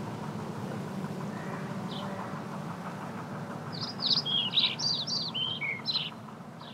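A songbird singing: one short high chirp, then a quick two-second run of high chirps and trills near the end, over a steady low background rumble.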